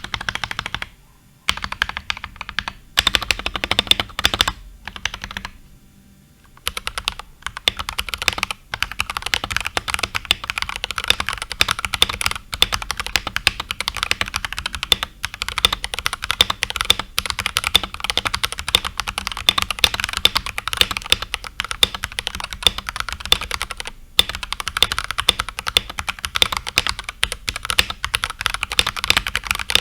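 Typing on an unmodded Akko 3068B mechanical keyboard with Jelly Pink switches: rapid clacking keystrokes, a few short bursts at first, then continuous typing with a brief pause now and then.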